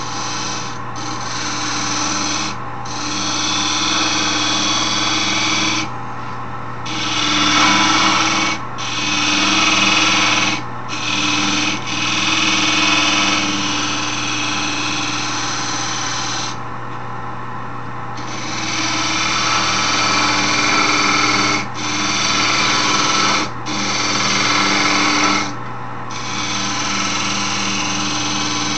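Wood lathe motor running steadily while a turning tool cuts into the spinning wooden handle. The cutting comes in repeated scraping passes of one to a few seconds, with short breaks between them as the tool is lifted and set back.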